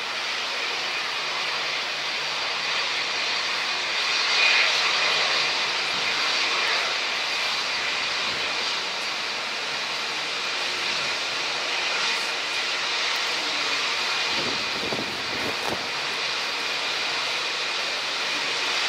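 Jet engines of an Airbus A320-family airliner running steadily, a high whine over a broad rush, swelling slightly about four seconds in.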